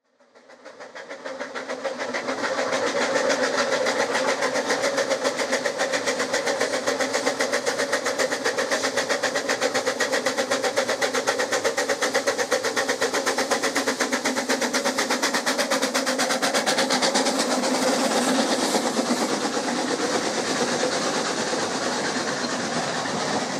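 Ffestiniog Railway Double Fairlie 0-4-4-0T steam tank locomotive working a passenger train, its exhaust beating in a fast, even rhythm. The sound fades in over the first couple of seconds and eases slightly near the end as the coaches roll past.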